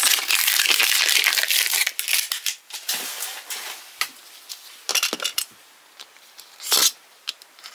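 Clear plastic shrink wrap crinkling loudly as it is peeled off a plastic capsule ball for the first two seconds, then sparse crackles and clicks of handling, with one short louder rustle near the end.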